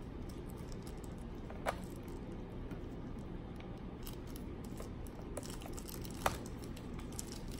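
Fingers working at a small clear plastic battery blister pack: faint plastic crinkling, with two sharp snaps of the plastic, one about a second and a half in and a louder one about six seconds in.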